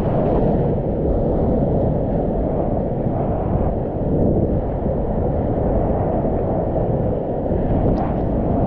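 Whitewater rapids rushing, a loud, steady, muffled roar with water and wind buffeting the action camera's microphone.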